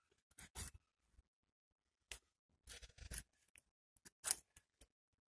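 Flat-ground 420HC steel blade of a Kizlyar Supreme Bastardo knife carving wood in about six short, separate scraping strokes at uneven spacing, the strongest about four seconds in. The blade only starts to bite once the angle is found, which is put down to its thickness.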